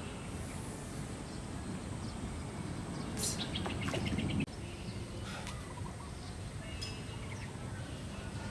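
Outdoor ambience with birds chirping now and then over a steady low background noise. Around three to four seconds in, a louder low rumble swells and then cuts off suddenly.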